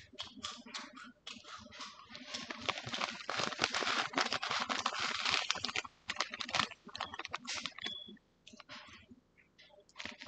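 ASMR tapping and crinkling close to the microphone: quick, irregular clicks that thicken into a dense crackle for a few seconds in the middle, then thin out to scattered taps again.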